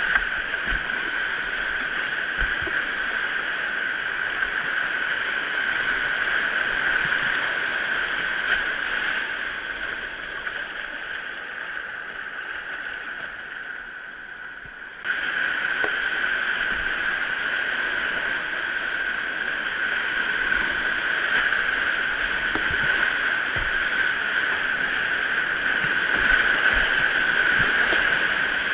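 Valley stream water rushing, a steady, loud hiss. It fades somewhat about midway, then comes back suddenly at full strength.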